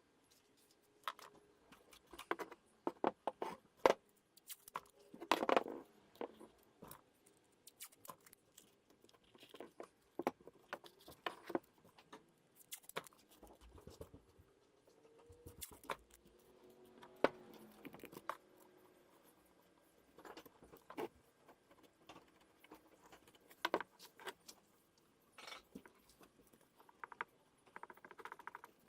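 Metal parts of a vintage hand-cranked meat grinder being handled, giving irregular clinks, taps and clicks.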